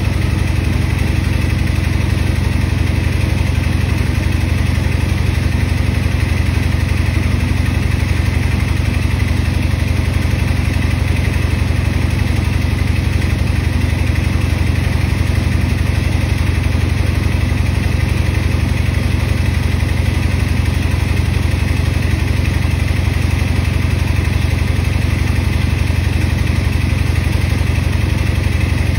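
Electrolux W4250S front-loading washer in its final extract, the drum spinning at a steady high speed. A deep, constant hum with a thin steady whine above it.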